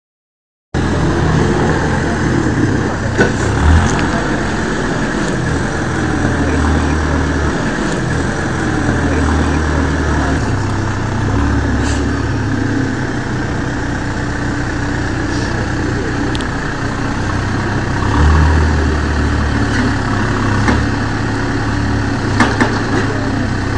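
Backhoe loader's diesel engine running steadily, revving up several times as the front loader bucket is raised, with a few sharp knocks.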